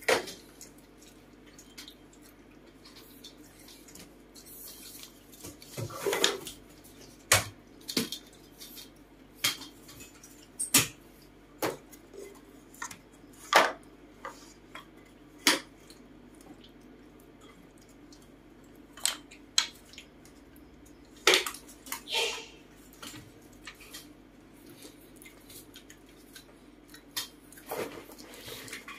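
Small wooden tiles clicking and clacking against each other and against a wooden box as monkeys handle them, in scattered sharp knocks at irregular intervals, with a couple of longer scraping sounds.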